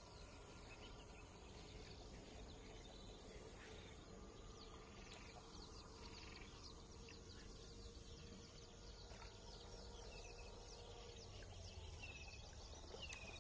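Near silence: faint outdoor ambience with a steady high insect trill. A few short falling bird chirps repeat near the end.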